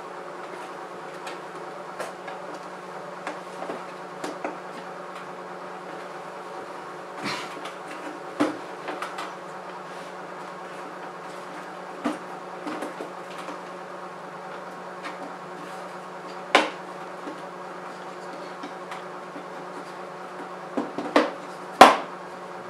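Scattered sharp clicks and knocks of plastic as a headlight lens cover is pressed onto the housing's factory clips, loudest in a cluster near the end. A steady hum runs underneath.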